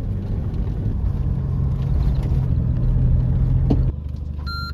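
Vehicle engine and tyre rumble while driving along a bush track, with a steady low hum that drops off sharply about four seconds in. A short high electronic beep sounds near the end.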